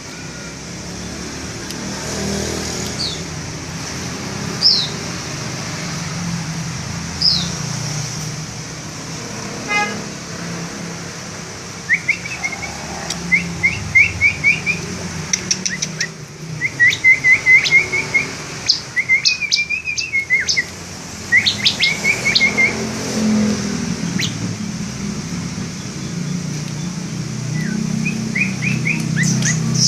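Ciblek (bar-winged prinia) calling: a few separate high falling notes at first, then from about twelve seconds in quick rapid runs of sharp chirps, with more near the end. A steady low rumble of traffic runs underneath.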